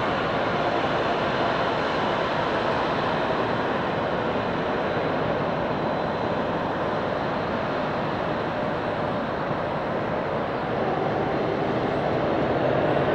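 Twin GE CF6-80C2 turbofans of a Boeing 767-300 freighter at taxi power: a steady jet rumble and hiss with a faint whine, swelling a little louder near the end.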